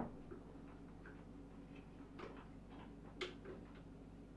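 A few faint clicks from the buckle of a retractable ratchet strap being worked by hand, the sharpest about three seconds in; the mechanism is stiff from lack of use.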